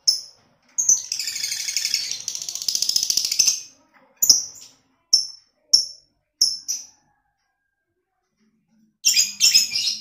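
Caged lovebird calling: sharp high chirps, then about a second in a rapid unbroken chattering run of nearly three seconds, the 'ngekek' chatter prized in contest lovebirds. A few more single chirps follow, a pause of about two seconds, and a short chattering burst near the end.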